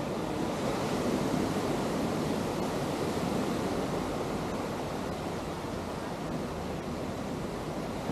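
Ocean surf washing onto a sandy beach: a steady rush of waves, with some wind buffeting the microphone.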